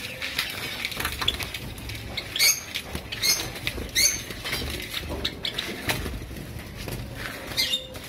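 Java sparrows fluttering and flapping their wings in a small wire cage, with scrabbling and wings brushing the mesh. Several short, high, rising chirps come through, the clearest about two and a half and four seconds in.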